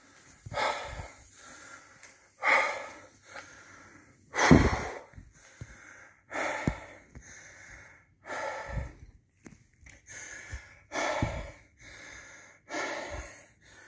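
A man breathing hard and unevenly, in and out about once every two seconds: shaken breathing after the fright of a capacitor bursting in front of him.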